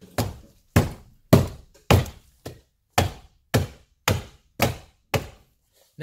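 Hand knocking up under the door pull of a Mercury Marauder's plastic interior door panel, about ten sharp thumps roughly two a second, to pop the panel off its retaining clips.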